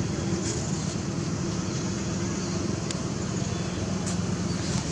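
A steady low mechanical hum with even background noise, and a faint tick about three seconds in.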